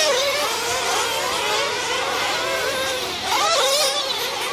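Several 1/8-scale nitro RC truggy engines screaming together, their pitch rising and falling as the trucks accelerate and lift off around the dirt track, with a sharp rev-up about three seconds in.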